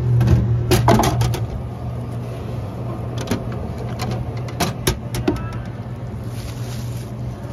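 A plastic soda bottle drops into the vending machine's delivery bin with a clatter about a second in. Single knocks follow as a hand pushes the bin flap and pulls the bottle out. A steady low hum runs underneath.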